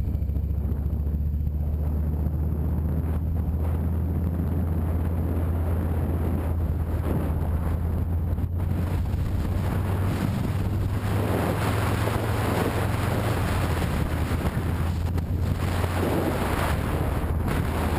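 Motorcycle engine running steadily at road speed, with wind rushing over the microphone that grows louder in the second half.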